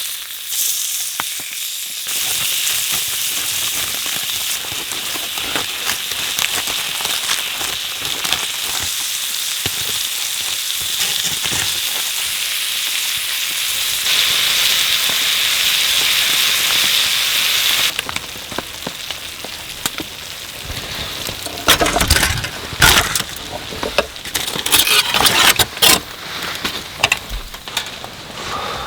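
Food frying in a pan, a steady dense sizzle that eases off about two-thirds of the way in. Toward the end, a series of sharp knocks and clatter.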